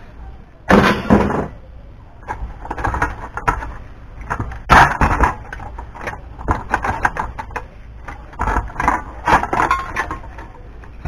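Sheet-steel casing and parts of a dismantled car power amplifier being handled, knocking and clattering against each other and the scrap pile in irregular knocks and scrapes, loudest about a second in and again around five seconds in.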